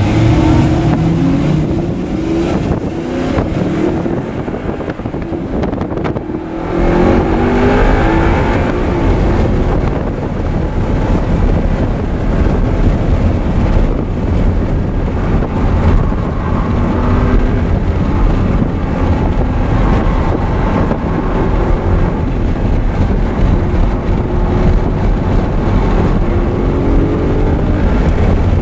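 Audi R8 engine driven hard on a race track, with wind noise over it. It eases off a couple of seconds in, then picks up sharply about six and a half seconds in and keeps revving, rising and falling in pitch as it runs through the gears.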